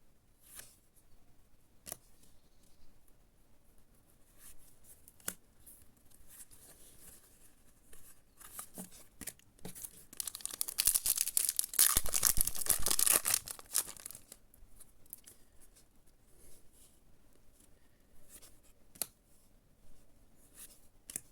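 Foil wrapper of a Yu-Gi-Oh booster pack being torn open: a crinkly ripping that lasts about four seconds midway. Light scattered clicks and rustles of handling come before and after it.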